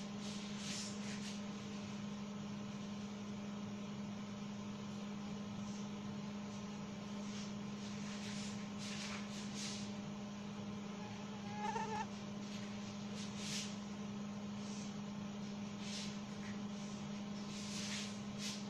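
Marker pen on a whiteboard: short squeaky, scratchy strokes coming and going as arrows and symbols are drawn, over a steady low hum.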